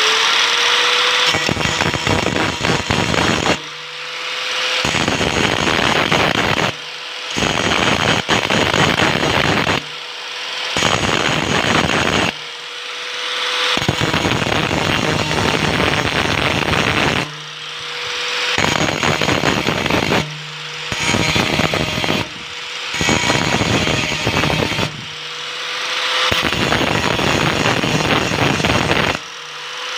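Angle grinder grinding down a weld bead, the disc biting into the metal in repeated passes of a few seconds each. Between passes the noise dips briefly and the motor's pitch rises as it spins back up off the work.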